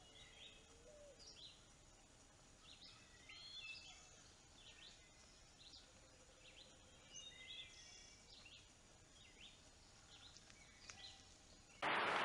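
Faint songbirds singing in the woods: a scatter of short chirps and slurred whistled phrases over a low background hiss. Near the end a loud, steady hiss starts suddenly.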